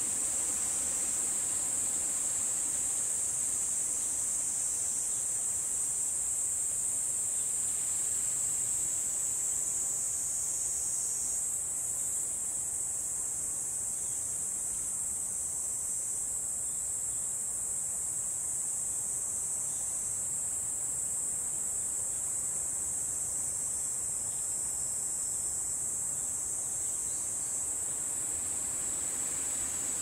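Insects singing in one steady, high-pitched drone that runs on without a break and eases slightly after about ten seconds.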